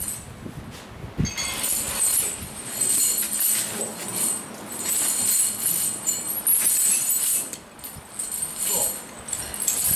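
Heavy steel snow chains on a motor grader's tyre clinking and rattling as they are handled and adjusted, a jingling metal sound that starts about a second in and comes and goes in uneven clusters.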